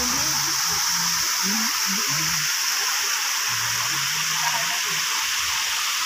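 Rocky jungle stream and small waterfall running, a steady hiss of rushing water, with a steady high-pitched whine over it and faint voices of people talking.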